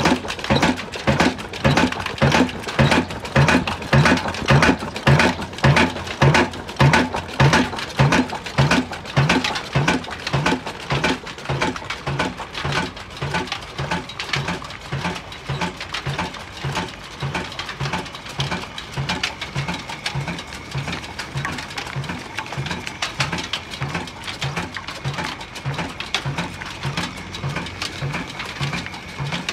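Old Ruston Hornsby diesel engine running slowly, its exhaust beating in a regular thump a little over twice a second. The beats are louder for the first dozen seconds or so, then settle softer.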